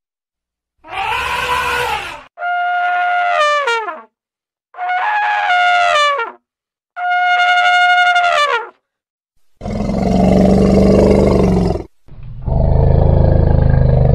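A series of elephant calls: four trumpet calls, each about one and a half seconds long and dropping in pitch as it ends, followed by two longer, deeper, rougher calls.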